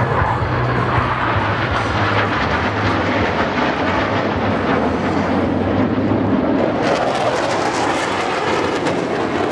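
Jet engine roar from the Black Eagles' formation of KAI T-50B Golden Eagle jets flying past, a steady broad rush. About seven seconds in it turns rougher and crackling.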